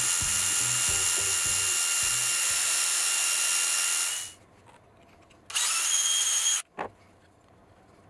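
Cordless drill running steadily at speed, its small bit boring an axle hole into a pine block through a drilling guide. The drill stops about four seconds in. It then gives a second, shorter burst of about a second that spins up at the start, followed by a brief knock.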